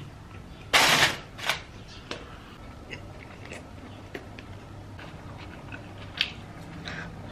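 Eating sounds: chewing pita and a döner plate, with a short loud rushing burst about a second in and a smaller one just after, then faint scattered clicks of a plastic fork working through the food in a foam takeaway box.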